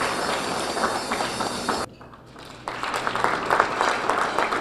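Audience applauding with dense clapping that drops away briefly about two seconds in, then picks up again.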